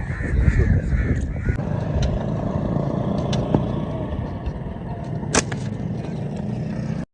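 A steady low rumble with a few faint clicks and one sharp crack about five seconds in.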